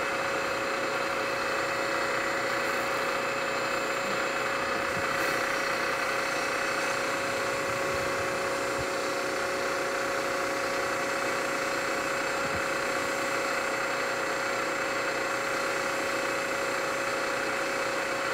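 Milling machine running steadily as a boring head cuts a 0.700-inch counterbore in a small metal block, shaving off chips.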